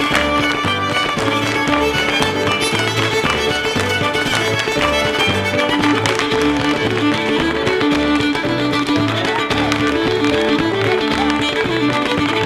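Fiddle-led Québécois traditional dance tune, a gigue, played at a lively pace over a steady pulsing bass line that keeps an even beat.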